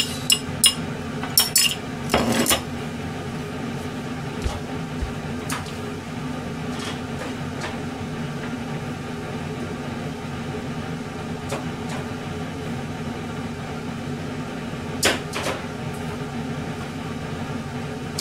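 Tableware clinking: dishes and cutlery knocking several times in the first couple of seconds, faintly now and then, and once sharply about fifteen seconds in, over a steady low hum.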